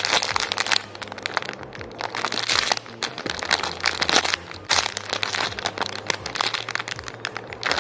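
Clear plastic bag crinkling and crackling as the squishy toy inside it is squeezed and turned by hand, a dense, irregular rustle.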